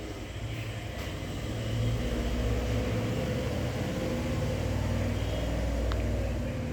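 A low, steady rumble that swells about two seconds in and eases near the end.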